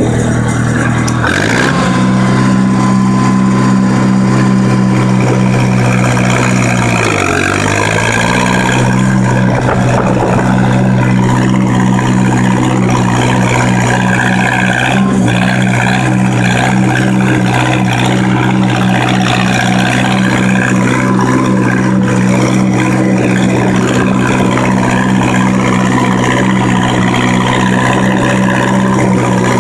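1949 Massey-Harris 22 tractor's four-cylinder engine running under load while being driven and shifted up toward third gear. Its note rises about a second in, dips briefly and picks up again about seven seconds in, then runs steady.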